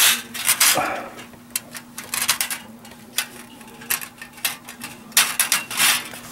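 Steel cylinder-head gasket being lifted and worked off the studs of a Honda CB400 cylinder block: irregular metallic clinks, scrapes and rattles.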